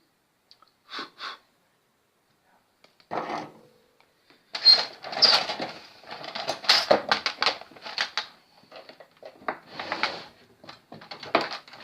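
Irregular clatter and scraping of hand tools and small parts being handled on a repair bench, in short bursts that start about a second in and grow denser after about three seconds.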